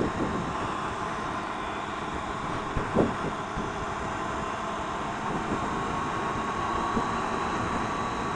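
Triumph Tiger 800 XRt's three-cylinder engine running steadily at riding speed under wind noise on a helmet-mounted microphone, with a sharp thump about three seconds in.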